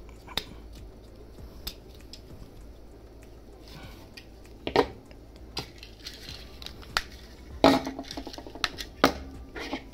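Hard plastic parts of a Super Minipla snap-together robot model clicking and knocking as they are handled and fitted together. The clicks come at irregular intervals, with the sharpest about five, eight and nine seconds in.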